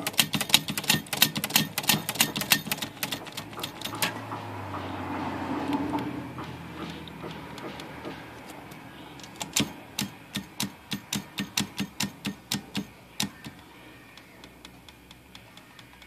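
Typewriter mechanism clicking as its carriage is run along the line to test where it binds and line-locks short of the margin. A fast run of clicks comes first, a quieter steady sound follows for a few seconds, then a slower, even run of about three clicks a second.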